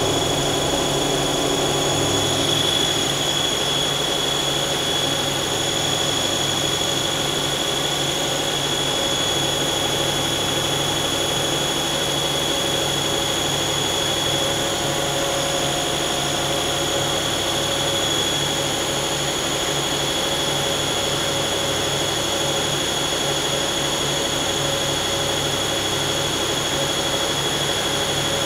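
Mazak CNC lathe running under program, its spindle turning at about 2,000 rpm while the turning tool feeds along the bar's outside diameter. The sound is a steady machine drone with a steady high whine.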